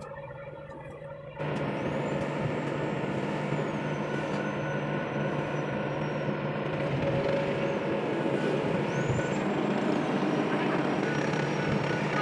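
Excavator's diesel engine running steadily close by. It cuts in abruptly about a second and a half in, and a faint high whine rises, holds and falls twice over it.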